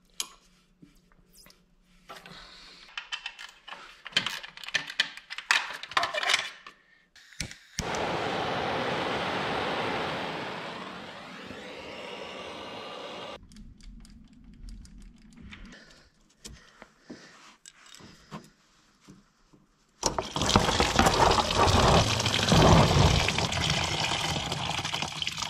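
Hand tools clicking and rattling on engine parts, then a long steady hiss from a pressurised can aimed at the turbo's bolts, easing off partway. About twenty seconds in, engine coolant starts pouring suddenly from under the car into a drain pan, a loud steady rush of liquid.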